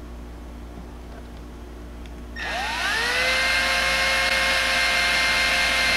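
Cordless drill starts about two seconds in, spinning up with a rising whine, then runs at a steady pitch while drilling a screw hole in the Jeep's third brake light mount.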